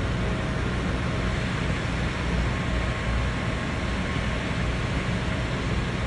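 Steady hum and rushing hiss of a fish farm's water pumps and tank aeration running without a break.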